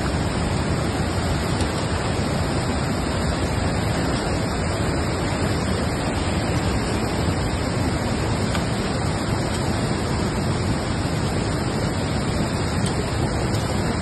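Steady rushing of a rain-swollen mountain stream in flood, fast muddy water pouring over rocks, loud and unbroken.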